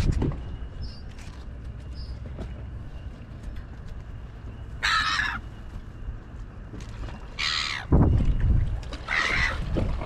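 Seagulls calling: three short calls, about five, seven and a half and nine seconds in, over a steady low rumble.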